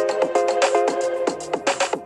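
Intro background music: a held chord under quick, crisp percussive ticks and short falling notes, with a brief dip in loudness near the end as a phrase closes.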